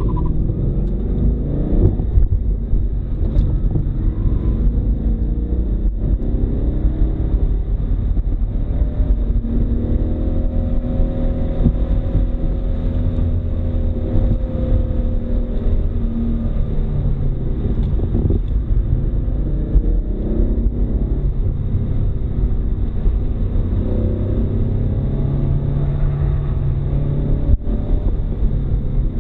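Ford Mustang GT's V8 engine running hard, heard from inside the cabin, its pitch rising and falling as it accelerates and backs off, over a heavy low rumble.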